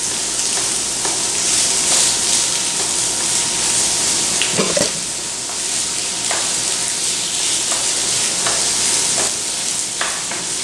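Crumbled chicken sausage sizzling and frying in olive oil in a skillet, with a utensil scraping and tapping the pan as the meat is stirred and broken into small pieces. The sizzle is steady, with a few short clatters of the utensil against the pan.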